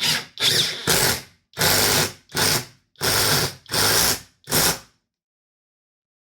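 Parkside Performance 20V cordless drill run at maximum speed in short trigger bursts, about seven in the first five seconds, while drilling a hole, then stopping.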